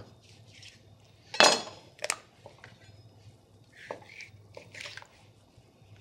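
A whole raw chicken being turned over on a cutting board: two sharp knocks with a brief clink, the loudest about a second and a half in, then softer handling and shuffling sounds.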